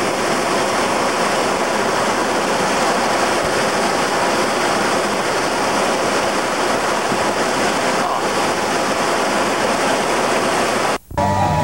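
Breaking ocean surf, a loud steady rush of whitewater. It cuts off abruptly near the end, and guitar music starts.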